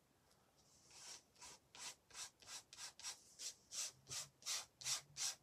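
Plastic card rubbed back and forth over thin tissue paper, smoothing it down onto a glued page. After about a second of quiet, soft scraping strokes come about three a second, growing louder.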